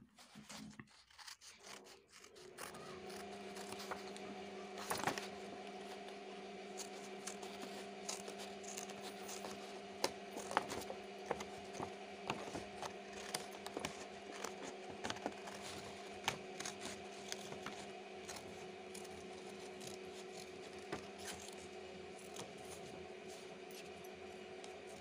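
Scissors snipping through thin card, a string of irregular sharp clicks with soft rubbing of the card, over a steady hum that starts about two and a half seconds in.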